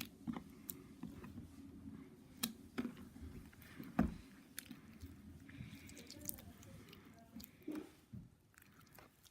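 Slime being squished and stretched by hand, giving scattered soft sticky clicks and pops, one louder snap about four seconds in.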